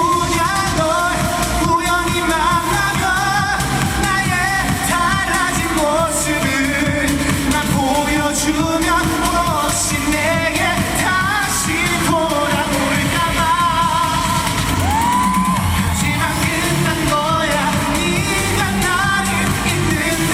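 A male trot singer singing live over a full backing track, with one note about three-quarters of the way through sliding up and held.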